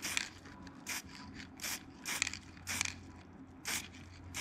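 Aerosol spray-paint can sprayed in short hissing bursts, six or seven quick puffs each a fraction of a second long, dusting a light coat of paint onto small bolts.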